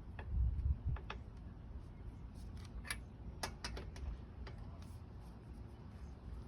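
Car jack being cranked to lift the car: irregular metallic clicks and ticks, with a low rumble of handling in the first second.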